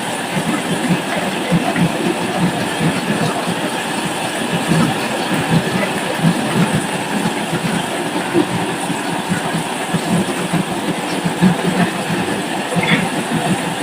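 Marbles rolling and clattering on a wooden slope and treadmill track: a steady rolling rumble with many small, irregular clicks of marbles knocking together and against the wood.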